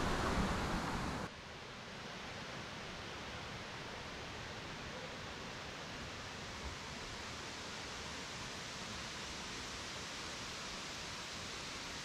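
Wind buffeting the microphone with a low rumble, cut off suddenly about a second in. Then a steady, even rush of distant falling water from the waterfall.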